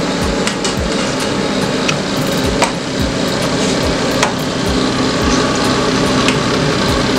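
Puff puff dough balls sizzling in deep oil in a saucepan, with irregular clinks of a metal slotted spoon against the pan as they are turned.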